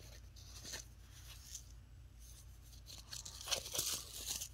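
Small paper seed envelopes rustling and sliding against each other as they are flipped through by hand, with a louder bout of crinkling about three and a half seconds in as one envelope is picked up.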